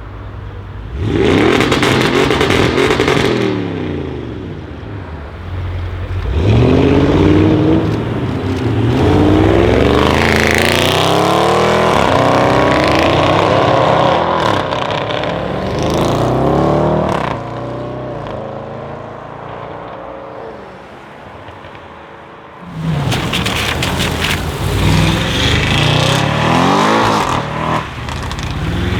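Audi RS6 C7's twin-turbo 4.0 V8, decatted and remapped with a Milltek exhaust, accelerating hard several times, its note sweeping up and dropping back between gears. Sharp crackles from the exhaust come in the last few seconds.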